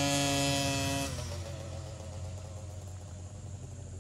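Small youth dirt bike engine running at a steady high rev, then its note falls away about a second in and it runs on fainter and rougher as the bike pulls away.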